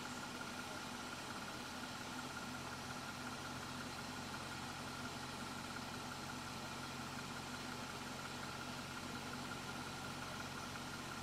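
Car engine idling steadily: an even hum with a faint steady whine above it, unchanging throughout.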